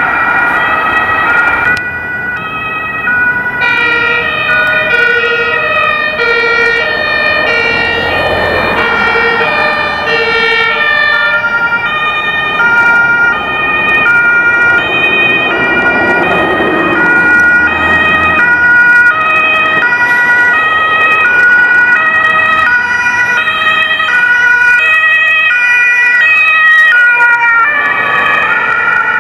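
German two-tone emergency sirens (Martinshorn) on ambulances, sounding their alternating high and low tones throughout. Passing traffic rumbles up twice under the sirens.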